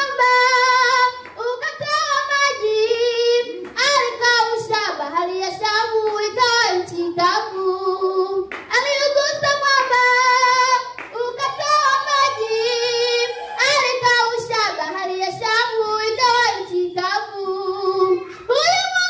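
A young woman singing a gospel song solo and unaccompanied, in a high voice with long held notes broken into phrases of a second or two.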